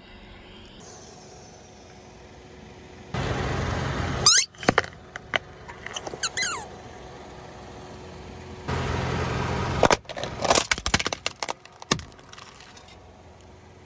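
A car tyre rolling over toys: the car runs briefly, then a soft rubber toy gives two squeaky squeals as it is crushed. After another short stretch of the car running, a hard plastic toy car breaks under the tyre in a quick series of cracks and snaps.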